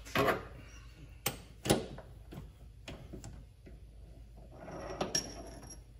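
Chuck key working the three-jaw chuck of a Vevor mini lathe to loosen the jaws and free the workpiece: a series of sharp metal clicks and knocks, then a short scraping rattle about five seconds in.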